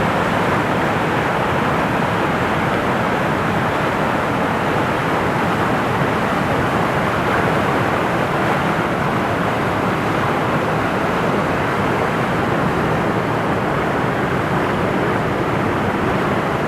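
Steady, unchanging noise of a motorboat under way, its engine running at an even speed.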